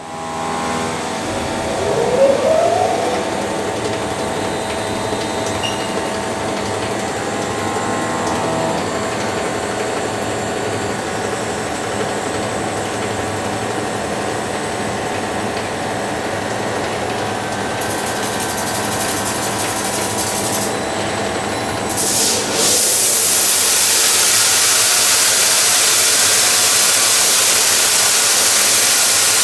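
Garboli LT 500 WET tube polishing machine running, a steady machine hum with a rising whine about two seconds in as it spins up. About 22 seconds in the sound turns into a louder, steady rushing hiss as the wet polishing head works on the tube.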